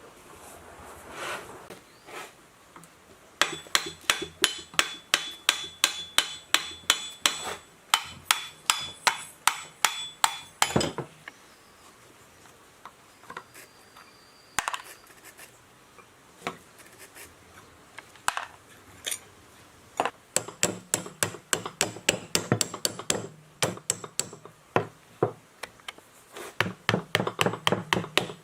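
Hammer striking metal in quick runs of blows, about three a second, with a ringing metallic tone, broken by pauses and a few single strikes.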